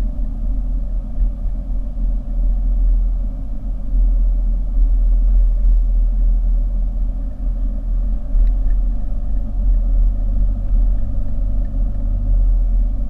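Steady low rumble of a car being driven, engine and road noise with no sharp events.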